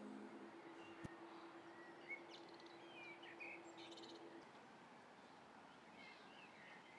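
Birds chirping faintly over quiet outdoor hush, with a low held tone that ends about four and a half seconds in.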